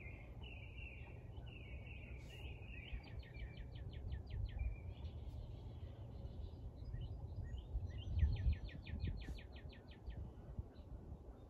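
Birds singing: a few chirps, then two fast trills of rapidly repeated notes, each lasting about a second and a half, a few seconds apart. A low steady rumble lies underneath.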